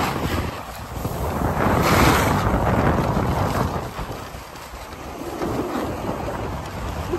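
Wind buffeting the microphone with the hiss and scrape of skis sliding over packed, granular snow during a downhill run. The noise swells and fades with the turns, loudest about two seconds in.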